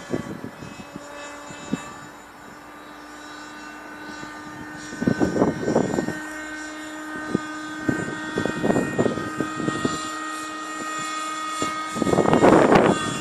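Thunder Tiger Raptor 30 nitro RC helicopter in flight, its small two-stroke glow engine and rotors holding a steady whine. Louder bursts of rough noise come several times, about five, eight and twelve seconds in, typical of wind buffeting the microphone.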